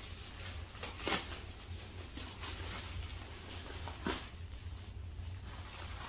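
Cotton-blend polo shirt fabric rustling as it is handled, with two brief louder swishes, about a second in and about four seconds in, over a low steady hum.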